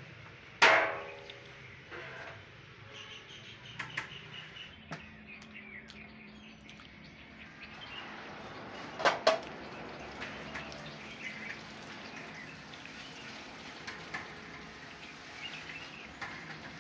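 Namak paray dough strips frying in hot oil in a large karahi, a steady sizzle. A metal spoon clangs against the pan with a ringing strike under a second in and twice about halfway through. Birds chirp in the background.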